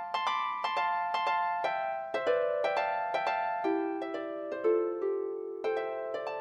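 Solo string-instrument music: a melody of sharply attacked notes that ring on after each stroke, about two to three a second, moving into a lower register about halfway through.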